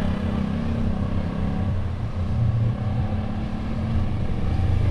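A moving vehicle's engine running steadily, a low even hum.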